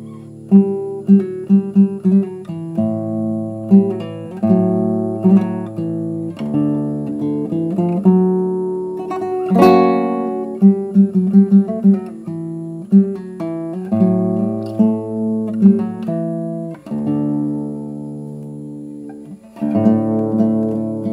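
Solo nylon-string classical guitar playing a flamenco zambra: ringing chords alternate with flurries of quick repeated notes, with one loud strummed chord about ten seconds in.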